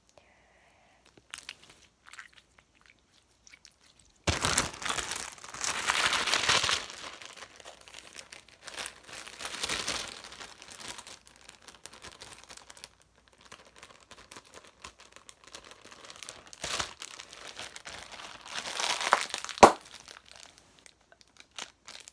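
Hands working a piece of jiggly slime and its clear plastic container: a few bursts of rustling handling noise, the longest a few seconds in and another near the end that finishes in a sharp click.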